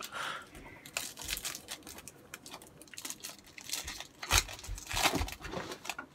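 A trading-card pack's foil wrapper being torn open and crinkled by hand: a run of irregular crackling rustles, loudest about four seconds in and again a second later.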